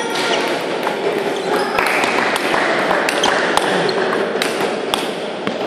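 Table tennis rally: the ball clicks sharply off the bats and bounces on the table about every half second, over a steady murmur of hall noise.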